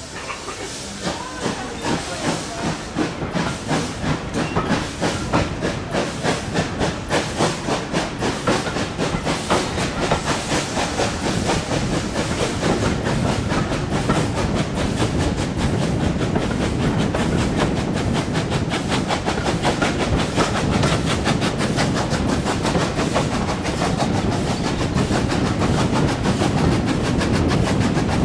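Ex-GWR 0-6-0 pannier tank No. 5764 pulling away with a train. Its steam exhaust beats start slow and quicken steadily until they blur into a continuous roar with the carriage wheels running on the rails. It is heard from an open carriage window.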